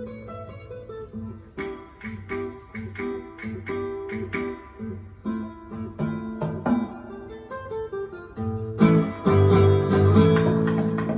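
Guitar music played from a vinyl record over hi-fi loudspeakers: a run of plucked guitar notes that grows louder and busier about nine seconds in.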